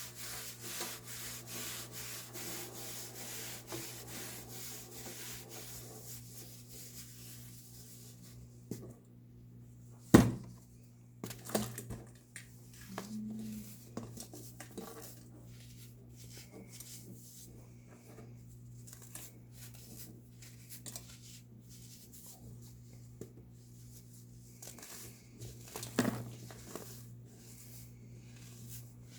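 Baking soda being crunched and crumbled: a dense run of fine crackling for the first several seconds, then sparser separate crunches, with one sharp, loud crunch about ten seconds in and another near the end. A steady low hum lies underneath.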